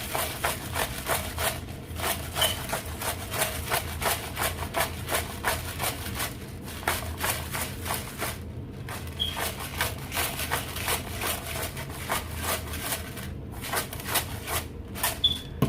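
Repeated scraping and knocking of a utensil working chopped sisig meat as it is mixed with salt and pepper, several strokes a second, with a brief pause about eight seconds in and again near the end. A low steady hum lies underneath.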